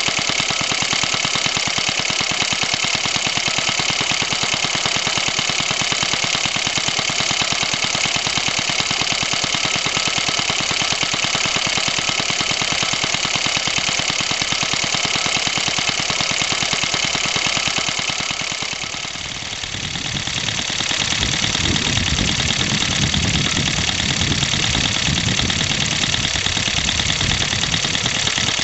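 Suffolk 75cc two-stroke engine running steadily with a rapid, even firing beat, driving a small air compressor. About two-thirds through the sound dips briefly, then comes back with more low rumble.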